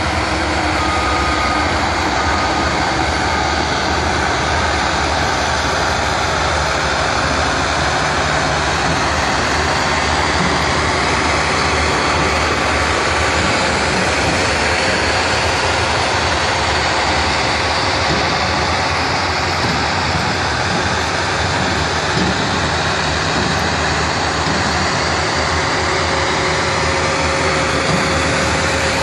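Diesel engines of a line of motor graders and a farm tractor running steadily as they grade a dirt field: a continuous, even drone with no breaks.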